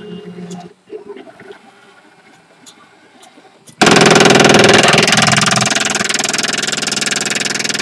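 CTC 3D printer (Replicator Dual clone) running with a faint stepper-motor whine. About four seconds in, a sudden, very loud, steady mechanical buzzing starts and keeps going, part of the printer's recurring failure.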